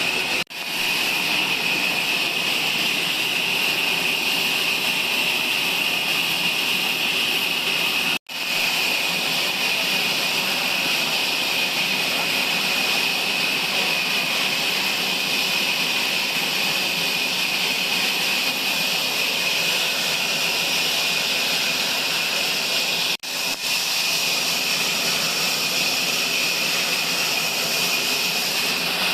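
Sawmill saw running steadily through a log, a loud, even, high-pitched whine with a hiss over it. It breaks off for an instant three times.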